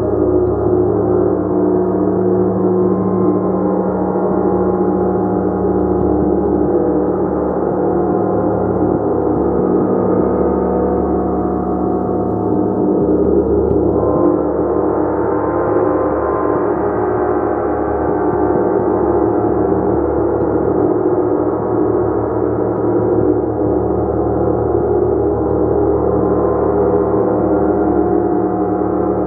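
Gong played continuously: a sustained, dense wash of many overlapping ringing tones with no pauses, swelling a little about halfway through.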